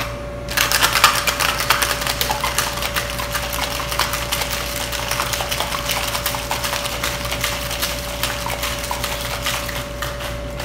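Ice cubes rattling hard and fast inside a metal cocktail shaker being shaken. The rattle starts about half a second in and thins out near the end.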